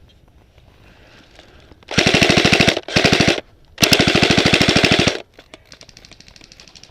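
Airsoft rifle firing on full auto: three rapid bursts of evenly spaced shots, a short one, a shorter one, then a longer one of about a second and a half. A fainter patter of quick shots follows.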